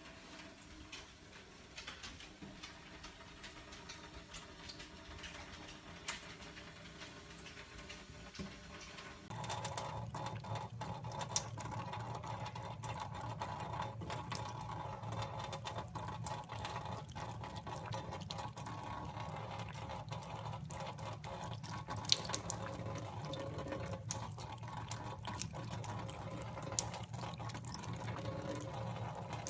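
Water running from a tap, starting abruptly about nine seconds in and then steady, with a few sharp clicks over it. Before that, only faint ticking.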